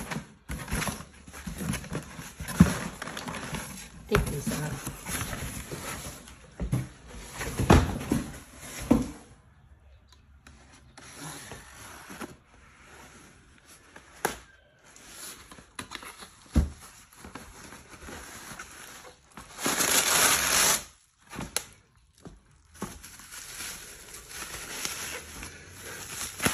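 Cardboard packaging being handled and torn open by hand: irregular rustling and scraping of cardboard with scattered knocks, and a louder rasping stretch about twenty seconds in.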